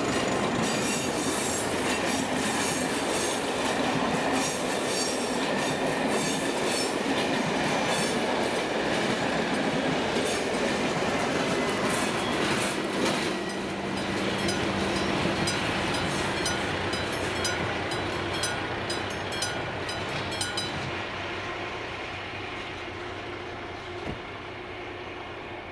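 Long passenger train passing close by at a level crossing, its wheels clattering over the rail joints in a regular rhythm. After the last coach goes by, about 21 seconds in, the clatter stops and the sound fades away.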